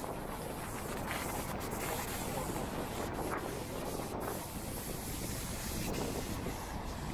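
Rainy city street ambience: a steady hiss of rain and wet traffic, with wind noise on the microphone.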